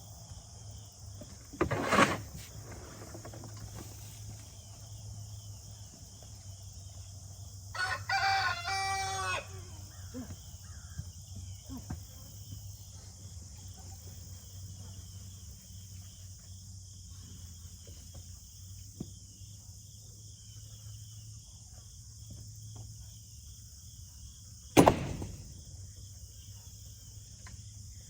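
A rooster crows once, about eight seconds in, over a steady chorus of crickets. Two sharp knocks, one near the start and one near the end, are the loudest sounds.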